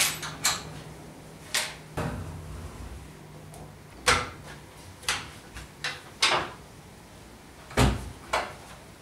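Latches clicking and a hinged wooden saw bed knocking as a miter saw's fold-away pivot mechanism is unlatched, moved and set back into place: a string of about ten sharp clicks and wooden knocks, several with a deep thump, the heaviest near the end.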